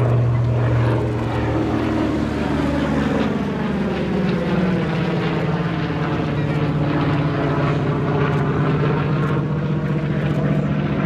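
Grumman TBM Avenger's Wright R-2600 fourteen-cylinder radial engine and propeller running steadily in a low display pass, the drone shifting in pitch as the aircraft passes and turns.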